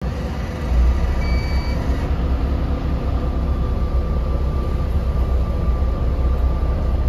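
Steady low hum of a narrow-gauge Yokkaichi Asunarou Railway railcar's interior, with a faint steady whine over it and a short high beep about a second in.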